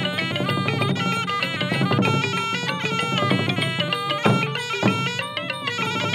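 Traditional Cambodian pinpeat ensemble music: a sralai reed oboe playing a quick, stepping melody over drums, with two heavy drum strokes about four seconds in.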